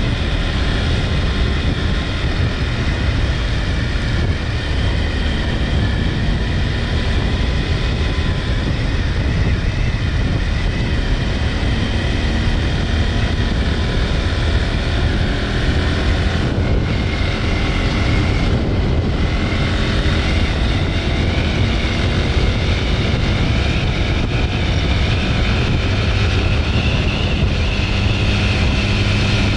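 Steady engine and road noise of a vehicle travelling along a paved road, holding an even level throughout.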